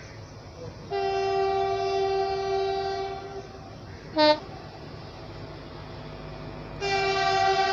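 Train horn sounding as the train pulls out: one long steady blast of about two and a half seconds, a short toot about four seconds in, then another long blast starting near the end. A low running rumble from the moving train lies underneath.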